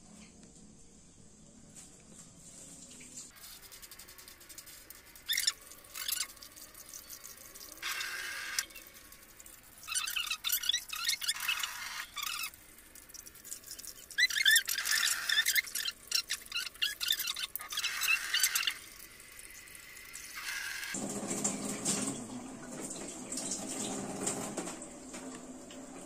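Kitchen tap running into a plastic bowl of coarse-ground corn as it is rinsed by hand, the water splashing and sloshing on and off. The sound turns steadier and lower from about 21 seconds in.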